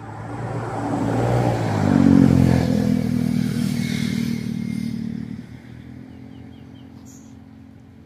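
A motor vehicle passing by on the road: its engine grows louder over the first two seconds, then drops in pitch and fades away by about five seconds in.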